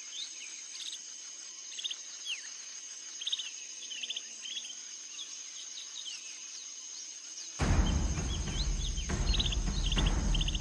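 Outdoor nature ambience: many short bird chirps and twittering calls over a steady, high insect trill. Near the end, a louder low rumbling sound comes in suddenly.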